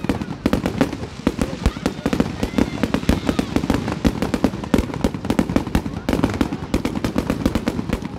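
Fireworks display: a dense, continuous barrage of rapid bangs and pops as shells fire and burst overhead.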